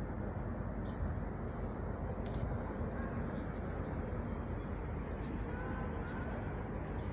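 Steady low rumble of the tug-barge Dorothy Ann–Pathfinder running past at full speed, with a small bird chirping about once a second above it.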